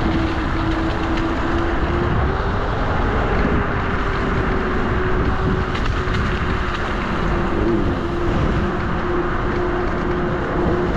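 TeeWing Mars XTR electric scooter running on its square-wave controller: a steady motor whine that rises slightly in pitch over the first couple of seconds, over a continuous rush of wind and tyre noise.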